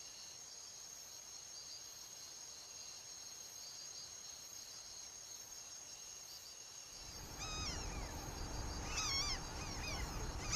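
Jungle ambience: a steady high insect drone. From about seven seconds in, a low rumble comes in and a bird gives several short, wavering calls.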